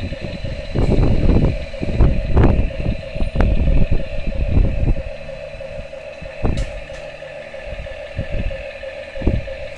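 Steady whirring hum of a toy excavator's small electric motor, with irregular low rumbles and thumps during the first half.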